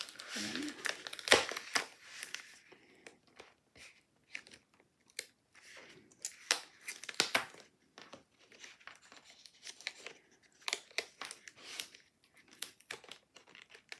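Cardstock and paper handled on a tabletop: irregular rustles, crinkles and light taps as the card front is lifted and repositioned, with the sharpest crackle a bit over a second in.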